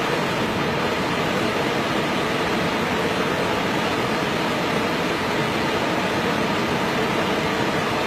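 Steady rush of a waterfall, falling water pouring onto rocks in an even, unbroken noise.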